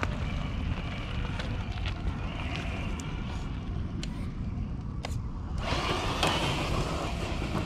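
Traxxas TRX-4 RC crawler's electric motor and gearbox whining faintly as it climbs over rocks, with scattered clicks from the tyres and chassis on stone, all under a heavy low rumble on the microphone. A louder rush of noise comes in about six seconds in.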